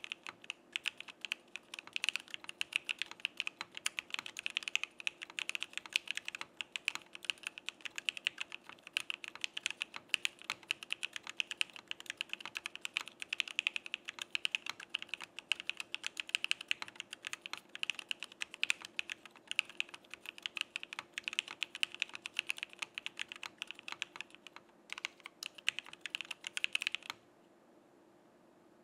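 Continuous typing on a Frog by Geonworks mechanical keyboard with JWICK Black Full Nylon v2 linear switches (stems lubed with Krytox 205g0) in an aluminium plate, with no foam and CRP R4 keycaps. Rapid, dense keystrokes with a brief gap shortly before the end, then the typing stops near the end.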